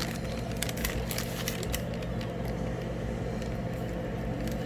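Scattered light crackling and clicking of packaging being handled while a package is opened, over a steady low hum.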